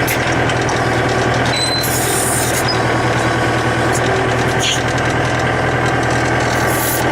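Engine of a wood-processing machine running steadily at constant speed, a low even drone. A short burst of hiss comes about two seconds in.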